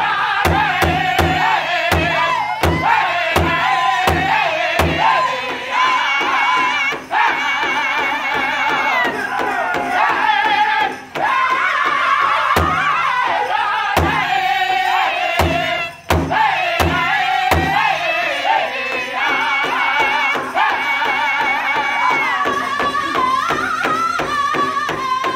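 Powwow drum group of men singing a contest song together in high, wavering voices while beating a large hide powwow drum with sticks. The drumbeats come evenly for the first few seconds, then thin out to scattered strikes while the singing carries on.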